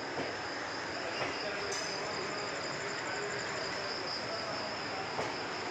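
Crickets chirping in a steady high trill, with a fainter pulsing trill joining about two seconds in, over a steady rushing noise.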